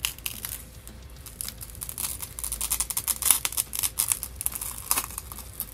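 Thick, already-cracked phone cover glass crackling and snapping as it is broken apart by hand: a dense run of small cracks that builds through the middle, with one sharper snap near the end.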